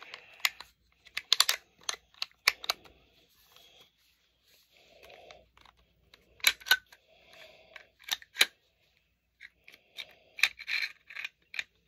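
Metal parts of a Desert Eagle .44 Magnum pistol being handled and fitted together: irregular sharp clicks with short scraping slides between them, as the parts are tried and don't seat.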